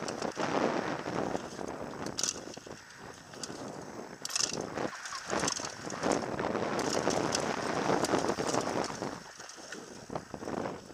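Downhill mountain bike ridden fast down a dirt trail: tyres rolling and skidding over dirt and stones, and the bike rattling over the rough ground. Wind rushes on the microphone, rising and falling, with short sharp high hisses every second or two.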